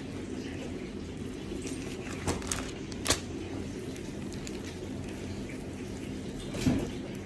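Gloved hand pressing and patting raw ground-beef burger patties on parchment paper: a few short clicks about two to three seconds in and a louder soft pat near the end, over a steady low hum.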